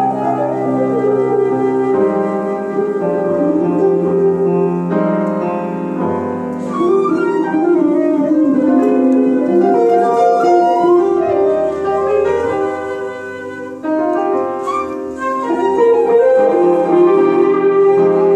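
Live improvised small-group music: a flute playing a melodic line over piano chords.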